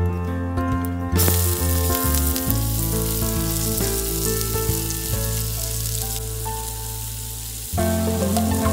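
Chopped onions dropped into hot oil in a frying pan, setting off a sudden loud sizzle about a second in that carries on steadily as they fry.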